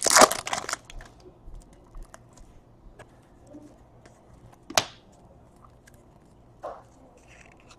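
Trading cards being handled and flipped through by hand: a short rustle at the start, then scattered light clicks and snaps of card edges, the sharpest about five seconds in.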